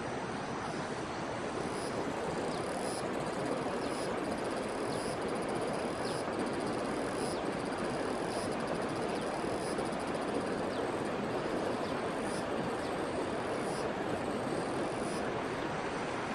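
Steady rushing of a flowing stream over rocks, with high insect calls pulsing about once a second above it.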